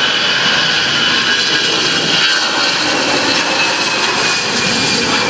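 Jet airliner's engines running loud and steady close by, a high whine over a broad rush.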